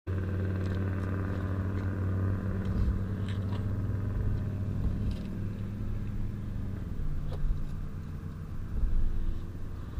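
Coin-operated air compressor running with a steady hum while it inflates a motorcycle tyre that has just been plugged. Its pitch shifts about two-thirds of the way in, and there are a few faint clicks.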